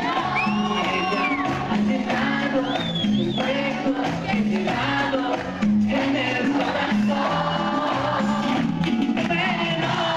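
Live cumbia band music: a repeating bass line under keyboards, with high notes that slide up and down in the first few seconds and again near the end.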